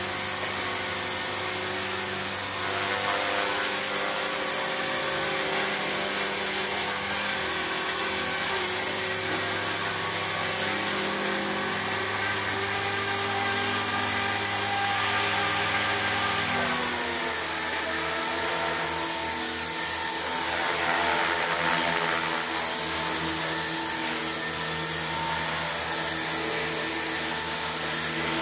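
Electric 450-size RC helicopter hovering: steady whine of its electric motor and gears over the whoosh of the main rotor. A little past halfway the pitch slides down and then holds steady at the lower speed.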